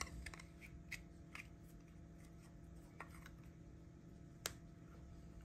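Faint small clicks and rustles of Teflon thread tape being pulled off its roll and wrapped around a threaded pipe fitting, the sharpest click near the end, over a low steady hum.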